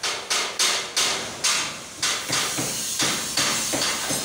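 Hammer blows on metal in a regular series, about three strikes a second, each with a short ring after it.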